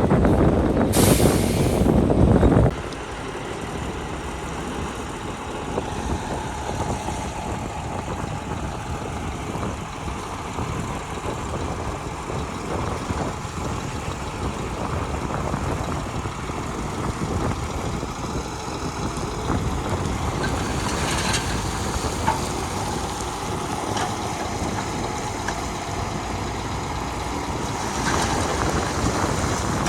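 Heavy diesel construction machinery running: loud for the first few seconds, with a short air hiss about a second in, then dropping abruptly to a steady engine drone.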